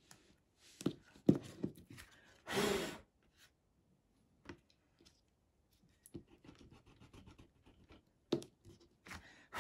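Small knocks and short scratchy rubbing on paper as an eraser and fine brush are handled over a watercolour card, with one louder breathy rush about two and a half seconds in.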